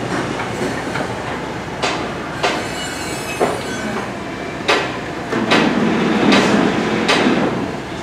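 Construction-site work noise: irregular sharp metal clanks and knocks, about six of them, over a background din that swells into a louder rumble for a couple of seconds near the end.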